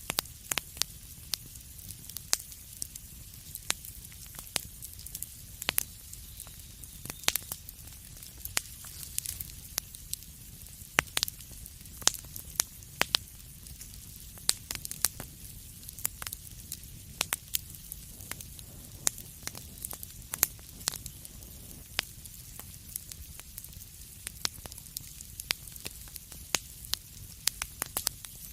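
Wood fire burning, with many sharp irregular crackles and pops over a steady low rumble and soft hiss.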